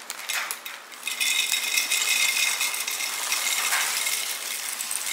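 Goldfish crackers poured from a foil bag into a glass mason jar, making a steady dry rattle of small crackers against glass. It starts about a second in and tails off near the end.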